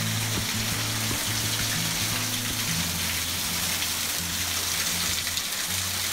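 A stream rushing steadily, with background music of held low notes over it.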